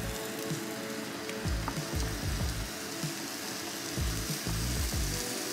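Waffle batter sizzling on the hot plates of a Breville Smart Waffle Pro waffle maker as it is spooned on, a steady hiss with irregular low thumps beneath.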